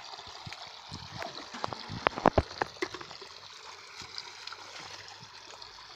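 Shallow stream water trickling and gurgling steadily through a gap in a mud bund, with a quick run of sharp ticks about two seconds in.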